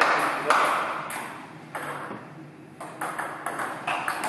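Table tennis rally: the ball clicks sharply off the bats and the table top, several hits in quick succession.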